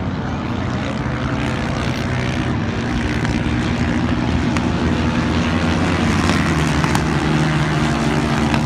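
Several four-stroke racing quad bikes of the 451–750cc class running at speed at a distance, their engines blending into a steady drone that grows slowly louder.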